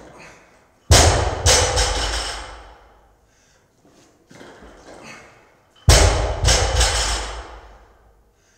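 A loaded barbell dropped on the floor from a clean, twice, about five seconds apart. Each time it lands with a loud thud, then bounces and rattles for a second or two before settling.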